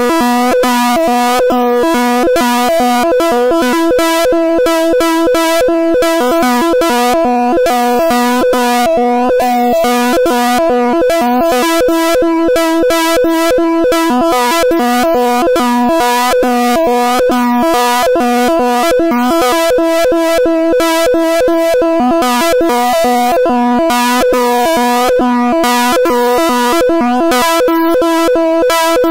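Oscilloscope-art audio generated in Python: the stereo signal whose left and right channels trace a rotating wireframe cube on an oscilloscope in X-Y mode, heard as a steady electronic synthesizer-like tone. It holds several steady pitches together, with a fast, even flicker over them.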